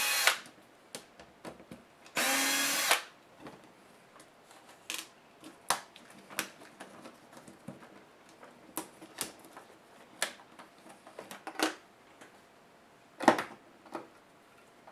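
Small handheld electric screwdriver whirring in two short runs while backing screws out of a laptop's display assembly: one run ends just after the start, and another lasts about a second, some two seconds in. After that come scattered clicks and light knocks of small metal and plastic laptop parts being handled, the loudest a sharp knock near the end.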